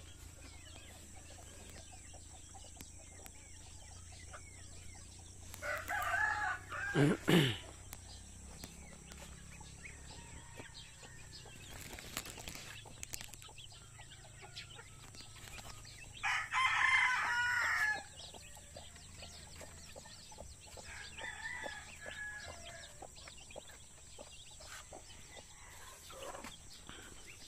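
Native chickens: a rooster crows about six seconds in and again, loudest, around sixteen seconds in, with fainter hen clucking between.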